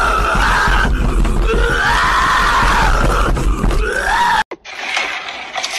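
A man making loud, raspy, drawn-out vocal noises, three long wails that rise and fall in pitch, which cut off suddenly about four and a half seconds in.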